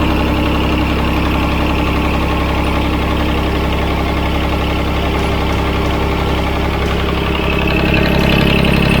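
John Deere tractor's three-cylinder Yanmar diesel engine running steadily at idle, growing a little louder near the end.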